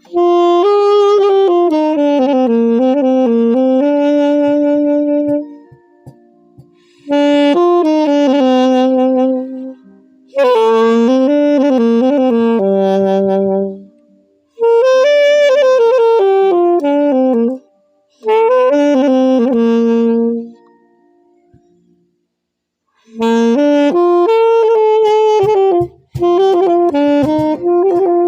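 Solo saxophone playing a slow melody in phrases of a few seconds each, with short breaths between them and a longer pause about three-quarters of the way through.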